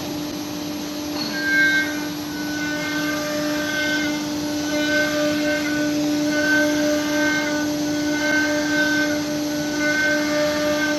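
CNC router spindle running with a steady whine, joined from about a second in by a higher tone that comes and goes about every second and a quarter.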